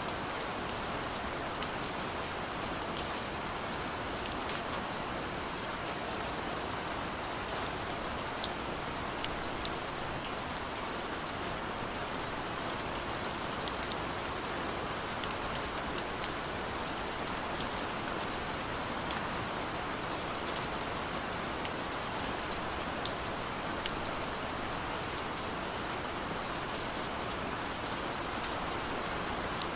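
Steady rain falling, an even hiss with many sharp individual drops ticking onto a surface.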